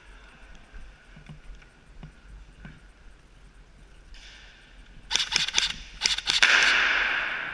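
Airsoft guns firing a quick run of sharp shots about five seconds in, then a loud hiss that fades away.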